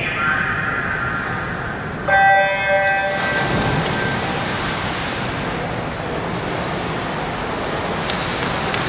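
Swimming race start: an electronic starting horn sounds one steady beep about a second long, with a bell-like ring, about two seconds in. It is followed by a steady noisy wash from the echoing pool hall.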